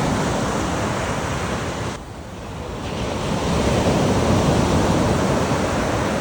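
Ocean surf washing on a beach, with wind on the microphone. The wash drops suddenly about two seconds in, then builds back up to its loudest in the second half.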